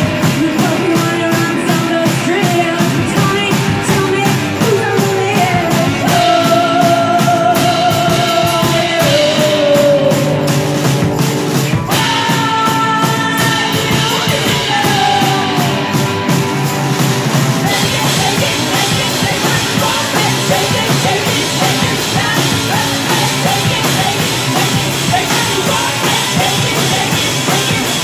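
Live rock band playing: electric guitar and drum kit with a woman singing. A little past halfway the sound turns brighter and fuller as the cymbals open up.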